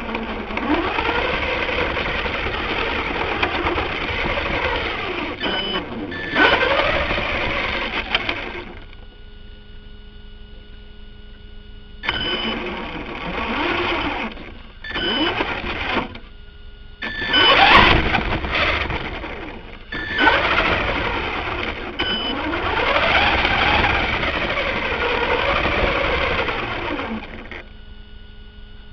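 Electric RC car motor and drivetrain whining from on board the car, its pitch rising and falling with the throttle. It comes in several stretches of driving with short pauses in between.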